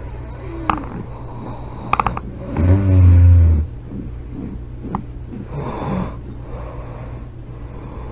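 A person snoring: one loud, low snore lasting about a second, about three seconds in, and a softer snoring breath near six seconds. A steady low hum and a few sharp clicks run underneath.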